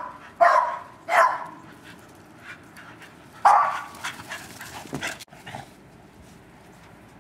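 Hound dogs barking in play: quick barks at the start, about half a second in and about a second in, then a louder one about three and a half seconds in, followed by a few fainter yips before it goes quiet.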